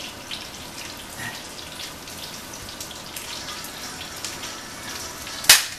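Halibut frying in a pan: a light, steady sizzle with small crackles. Near the end comes a single sharp, loud snap.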